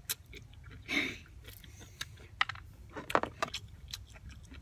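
Close-up mouth sounds of biting into and chewing a raw calamondin: sharp wet clicks and smacks, with a short louder burst about a second in and a cluster of clicks around three seconds in.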